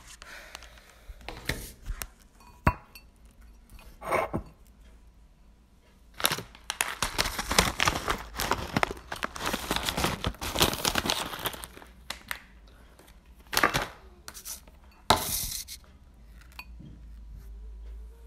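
Rustling and crackling handling noise close to a phone's microphone, coming in irregular bursts. There is a sharp click about two and a half seconds in, a long stretch of dense rustling in the middle and another short burst near the end.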